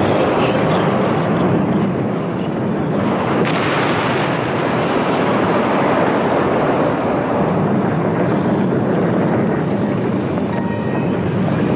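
Yasur volcano erupting: a steady roar from the vent, with a sudden louder blast about three and a half seconds in that slowly dies away over several seconds.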